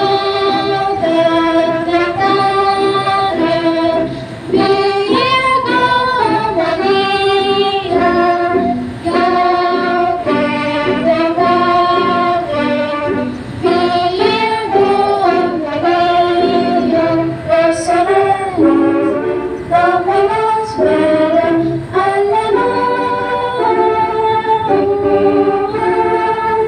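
A female voice singing a hymn solo through a microphone and loudspeakers, holding long notes with vibrato and gliding between them.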